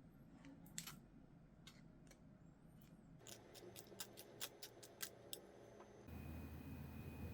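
Faint, sharp clicks and taps of kitchen tools, a few at first and then a quick run of about ten in two seconds. Near the end a low steady hum with a thin high whine comes in.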